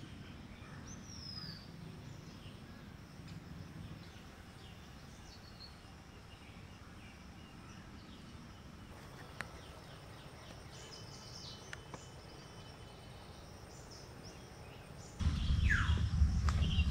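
Quiet forest ambience with a few faint bird calls and chirps scattered through it. About 15 s in it cuts abruptly to a much louder outdoor scene with a heavy low rumble and a falling whistled bird call.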